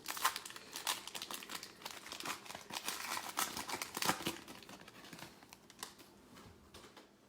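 A 2020 Prizm football card pack's wrapper being torn open and crinkled, a quick run of crackles that thins out about five seconds in.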